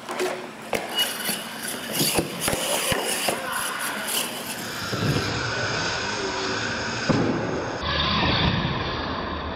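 Radio-controlled Bigfoot monster truck clattering with sharp knocks as it is handled and set back on its wheels. About five seconds in, its electric motor and gears whine steadily as it drives off across the concrete floor.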